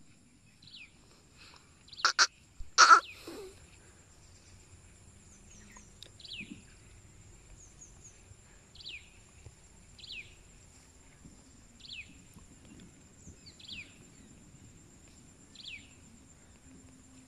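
Outdoor natural ambience: a bird repeats a short falling chirp about every second or two over a faint steady high-pitched whine. Two loud, sharp calls or cracks come about two and three seconds in.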